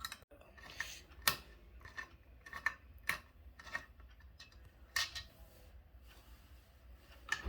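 Screwdriver working the screws of an electric iron: a scatter of small irregular clicks and scrapes of metal on screws and plastic casing, sharpest about a second, three seconds and five seconds in.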